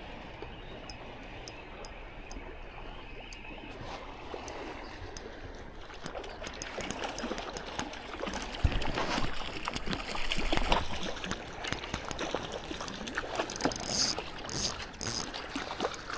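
Water splashing and sloshing as a small hooked sea trout thrashes at the surface while it is reeled in on a spinning reel. Faint regular ticking over the first few seconds; the splashing grows louder and more irregular from about six seconds in, with one sharp knock just before the middle.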